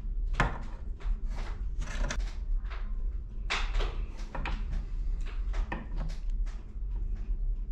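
Close handling noise of a charger cable and a small strip of sheet metal worked in the fingers: irregular rubs, scrapes and light clicks, over a steady low hum.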